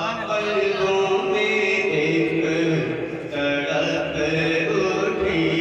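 Man singing a naat (devotional kalaam) into a microphone, drawing out long held notes that glide from one pitch to the next.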